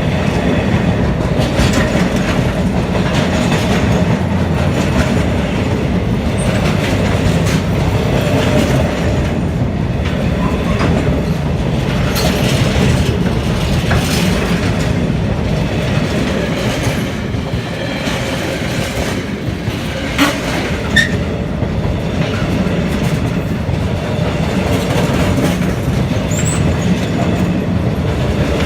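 Freight train hauled by Class 66 diesel locomotives passing close by: a steady loud rumble with wheels clicking over the rail joints, and a few brief high-pitched wheel squeals.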